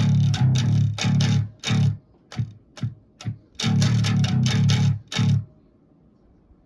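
Electric bass played through a distorted metal tone, a riff of short choppy notes. About two seconds in, the riff breaks into a few short stabs, then resumes and stops about five and a half seconds in.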